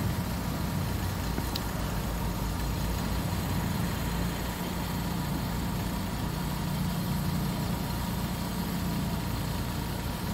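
Car engine idling steadily with a low, even hum, heard from inside the cabin.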